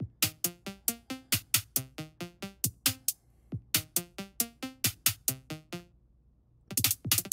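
Synthesized drum-machine loop from a JavaScript step sequencer: kick, snare, hi-hat and a sawtooth-wave bass, playing evenly spaced notes about three a second. Near the end it drops out briefly, then comes back much faster as the tempo is raised.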